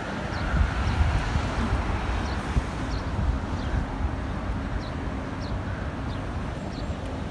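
Street traffic on a wide city road with wind buffeting the phone's microphone: a steady rush with a low rumble that rises and falls, and a few faint high chirps now and then.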